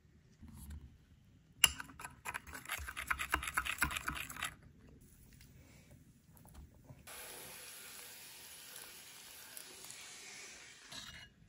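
Cream of rice being stirred briskly in a bowl: a sharp click, then about three seconds of rapid rhythmic scraping. After a short pause comes a steady hiss of running water lasting about four seconds.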